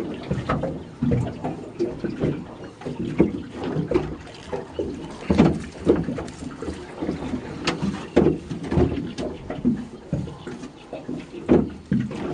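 A fishing net being hauled by hand over the side of a metal boat: irregular knocks and thumps of net and gear against the hull.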